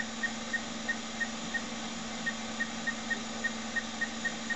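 Radio Shack hard disk drive spinning up after power-on: a steady hum with short high chirps about three times a second.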